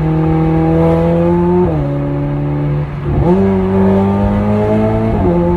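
Ferrari 488 Pista's twin-turbo V8, with a Fi exhaust and catless downpipes, heard from inside the cabin under acceleration. The engine note climbs steadily, drops with a gear change about a second and a half in, jumps up again just past halfway, climbs, and drops with another shift near the end.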